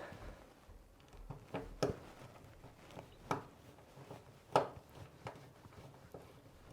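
A few separate light knocks and clicks, the loudest about two thirds of the way through, from handling the access cover on a heat pump unit as it is closed back up.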